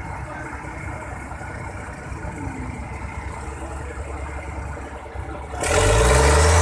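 Truck crane's diesel engine running steadily at low speed with a low throb while it holds a load. Near the end a much louder sound cuts in abruptly.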